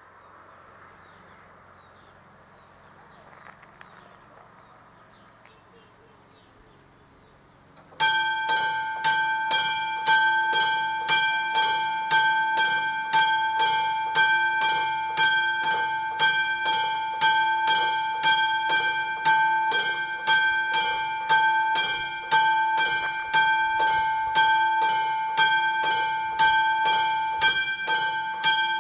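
Classic warning bell of an AŽD 71 level-crossing signal starts ringing about eight seconds in, struck evenly about twice a second with a clear ringing tone: the crossing has activated for an approaching train.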